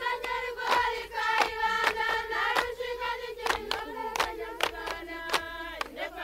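A group of voices singing one long held note over steady, evenly spaced handclaps.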